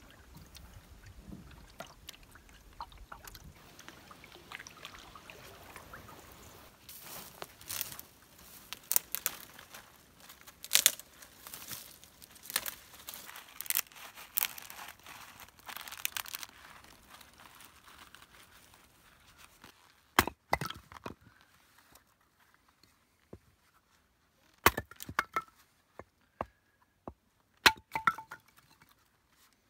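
Dry twigs and tinder crackling and snapping as they are broken up by hand, in a dense run of sharp cracks. Later come a series of separate sharp hatchet chops splitting kindling on a wooden stump, some of them with a short ringing tone.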